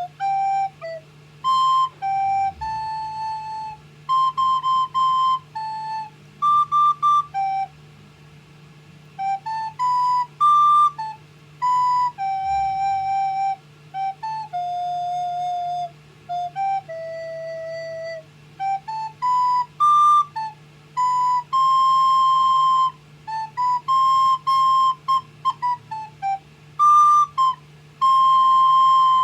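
A child playing a melody on a recorder: a string of clear held notes, phrase after phrase with short breaks between them.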